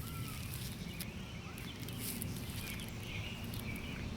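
Outdoor ambience: a steady low rumble on the microphone, with faint bird chirps and a few light clicks.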